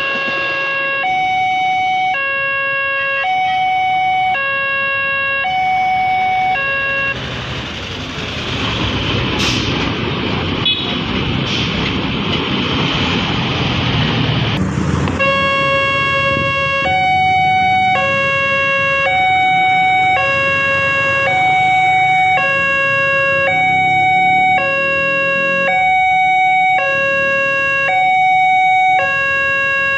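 Railway level-crossing warning signal sounding its electronic two-tone alarm, the two tones alternating about every second. For several seconds in the middle a loud rumbling noise covers the alarm.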